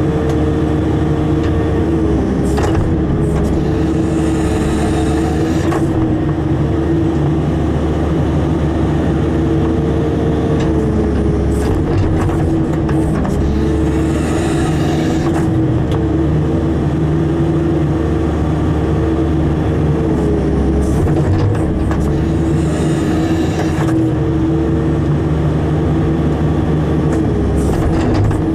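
Caterpillar hydraulic excavator working, heard from the operator's cab: the diesel engine runs steadily at working revs while the hydraulic whine dips and recovers in pitch as the boom and grading bucket move under load. Three spells of hissing come at intervals of about nine seconds.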